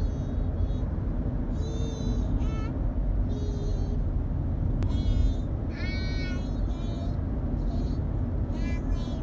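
Steady low road rumble inside a moving car, with a string of short, high-pitched squeals or squeaky sung notes over it, some bending in pitch, about eight of them spaced irregularly.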